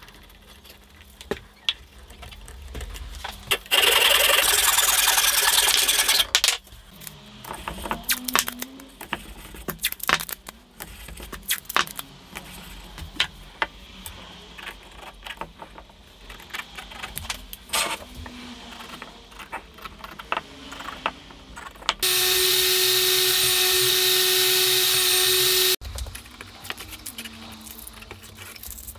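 A woodworking power tool runs twice in short bursts of about three seconds each, starting and stopping abruptly. The second burst carries a steady motor whine. Between the bursts come many light knocks and clicks of workpieces being handled.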